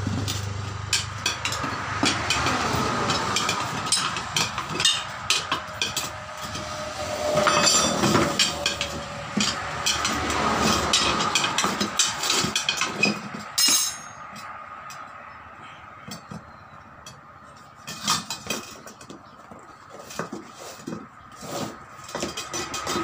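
Steel tyre levers clicking, knocking and scraping against a two-wheeler's wheel rim in irregular clusters as the tyre bead is pried off to get at the inner tube. The clatter eases off for a few seconds past the middle.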